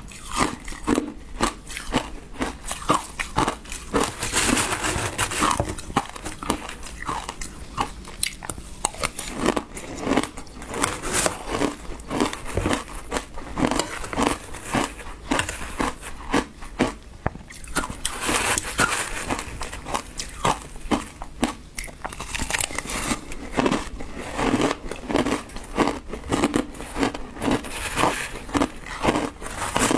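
Close-miked crunching and chewing of passion-fruit shaved ice, one mouthful after another, with many short crackles. Between mouthfuls, a metal spoon digs into the ice.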